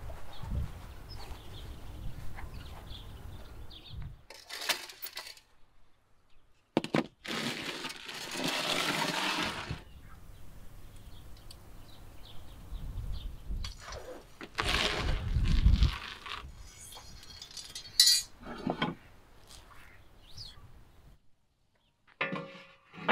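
Metal baking trays scraping and clinking on the brick floor of a wood-fired oven, in several separate scrapes with a few sharp clinks.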